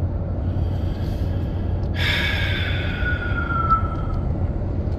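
Steady low road and engine rumble inside a moving pickup truck's cab. About two seconds in, a high tone sounds for about two seconds, slowly falling in pitch.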